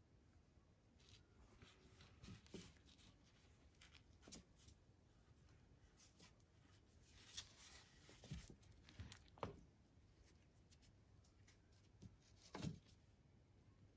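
Near silence with faint scattered rustles and soft knocks from handling, a few sharper ones in the second half, as a hand holds and strokes a Shih Tzu puppy on a tabletop.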